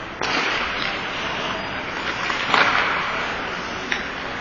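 Ice hockey play: skate blades scraping the ice and sticks knocking, a steady hiss with a louder surge about two and a half seconds in and a sharp knock near four seconds.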